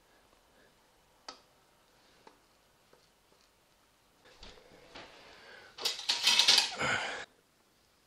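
Plastic dough scraper skimming foam off honey in a stainless steel bucket: a faint click, then about three seconds of scraping that gets loudest in the last second and a half before stopping suddenly.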